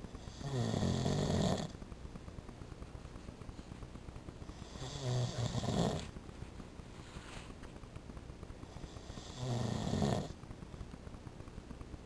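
A sleeping man snoring: three loud snores, each about a second long, coming one every four to five seconds.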